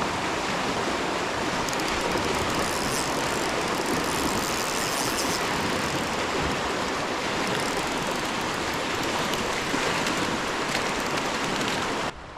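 River water rushing steadily in an even, unbroken hiss, beginning and ending abruptly.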